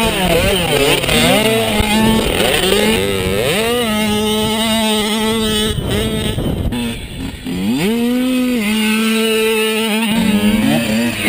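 Small dirt bike engine at high revs, its pitch climbing and holding, then dropping and climbing again with each gear change or throttle lift. There is a short lull about seven seconds in before it revs up sharply again.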